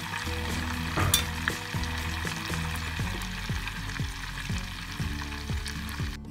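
Melted butter bubbling and sizzling in a pot over medium heat, its water cooking off as it clarifies, with a sharp click about a second in.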